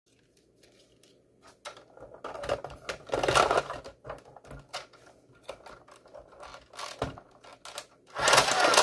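Irregular plastic clicks, clatter and rubbing from hands handling batteries and the plastic body of a Nerf Vulcan EBF-25 blaster, with two louder bursts of handling noise, about three seconds in and near the end.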